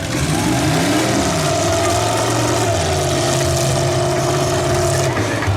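Demolition derby cars' engines running, with one engine revving up and back down about a second in.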